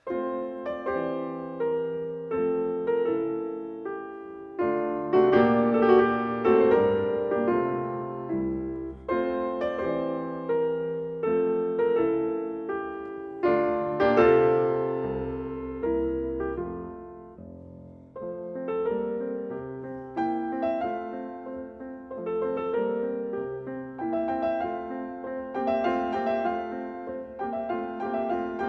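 Background piano music: slow chords and melody notes struck at a steady, unhurried pace, each note ringing and fading.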